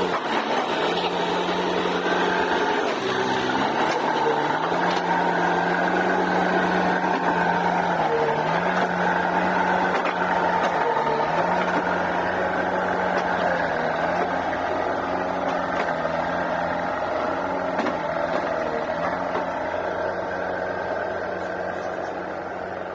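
JCB backhoe loader's diesel engine running under work while digging and pushing through mud, its note dipping briefly several times as it takes load. It grows a little fainter near the end as the machine moves away.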